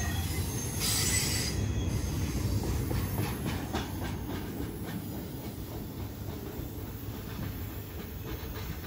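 Double-stack intermodal freight train's well cars rolling past on the rails, a steady low rumble with wheel clicks as the last car goes by; the sound fades as the train moves away.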